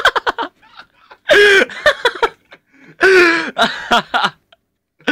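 Young men laughing: a quick run of short breathy bursts at the start, then two longer bursts of laughter about a second and three seconds in.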